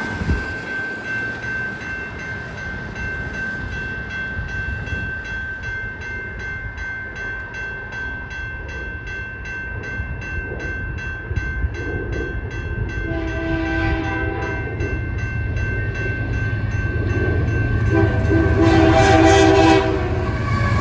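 Horn of CP 8017, a GE AC4400CWM diesel-electric locomotive, sounding two blasts, a shorter one about two-thirds in and a longer one near the end, over the rumble of the approaching train growing louder.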